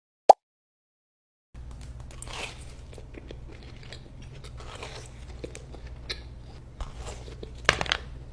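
Close-up mukbang eating sounds: someone biting into and chewing donuts, with irregular crunches, loudest near the end, over a steady low hum. A short high blip sounds just before, followed by a second of silence.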